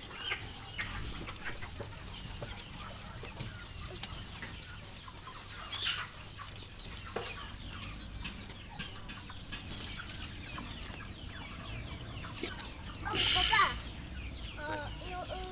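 Chickens clucking intermittently, with one louder call about thirteen seconds in.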